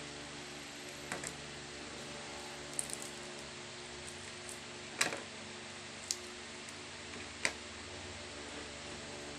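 Fingers picking and tearing cooked meat over a ceramic plate and dipping bowl, giving about five short sharp clicks and taps, the loudest about halfway through, over a steady low hum of room noise.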